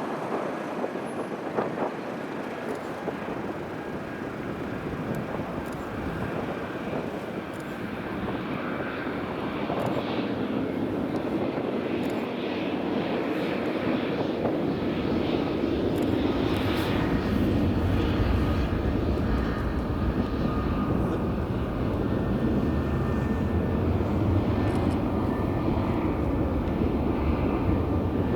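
Jet airliner's engines: a rumble with a steady high whine, growing louder over the middle of the stretch and staying strong to the end.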